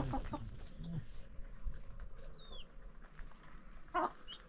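Chickens clucking now and then, with the loudest cluck about four seconds in and a brief high chirp midway.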